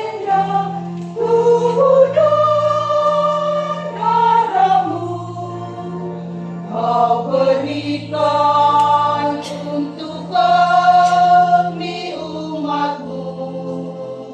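Church choir singing a hymn, accompanied by an electronic keyboard holding sustained low notes that change every second or two.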